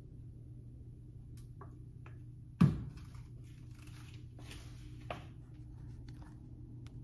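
A metal spoon clinks lightly against a metal pot a few times, then the pot is set down on a glass-top stove with one sharp, loud knock about two and a half seconds in. A couple of seconds of scraping and handling follow, with a second, lighter knock about five seconds in.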